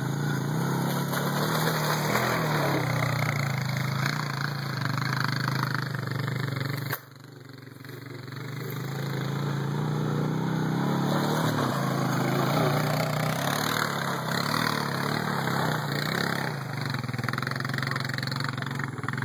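Quad bike (ATV) engine running, its note rising and falling as it is ridden. About seven seconds in the sound drops away abruptly, then builds back up over a few seconds.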